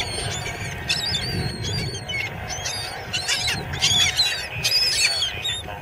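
A flock of gulls calling over a bait ball: many short, high, overlapping cries, thickest about three to five seconds in, over a low steady rumble.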